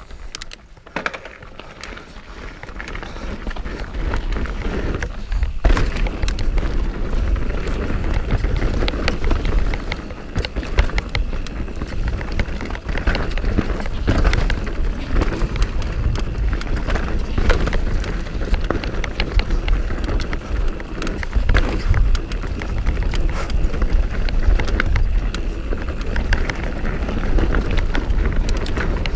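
Mountain bike descending a dirt trail at speed: tyres rumbling over the ground, with frequent sharp knocks and rattles from the bike over roots and bumps. The noise builds over the first few seconds as the bike picks up speed, then stays loud and steady.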